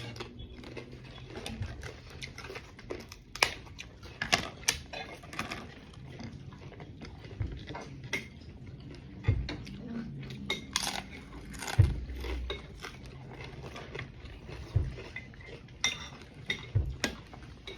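A person eating shrimp with tostadas: irregular crisp crunches and chewing, mixed with scattered clinks of tableware and a few dull knocks.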